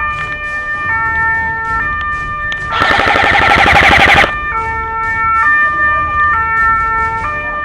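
Electronic two-tone siren wailing, switching between a high and a low note about every second. About three seconds in, a loud rattling burst lasts for a second and a half.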